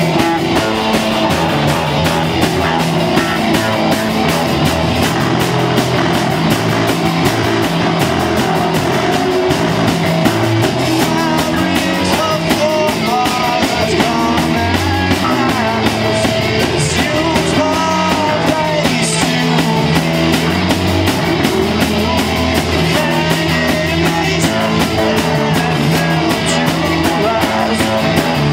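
A live rock band playing loudly and without pause: distorted electric guitars and a drum kit, with a singer on top.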